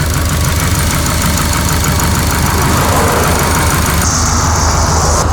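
Turbocharged Subaru EJ stroker boxer engine running steadily while the car is driven, heard from inside the cabin. About three seconds in a rushing noise swells, and a higher hiss joins a second later. The engine carries a heavy knock that the owner suspects is the skirt of the fourth piston slapping.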